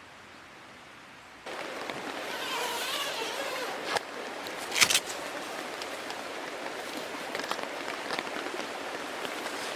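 Rain pattering steadily, with many small drop ticks, starting abruptly about a second and a half in after a faint hiss. Two sharper knocks stand out around four and five seconds in.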